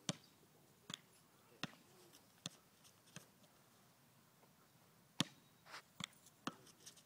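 A basketball being knocked about by a dog: a string of sharp, irregularly spaced knocks, about one a second at first, then a pause of some two seconds, then quicker knocks near the end.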